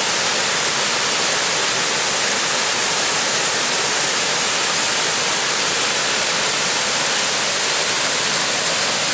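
Third Vault Falls, a waterfall, pouring down a rock face onto boulders with a steady rushing sound.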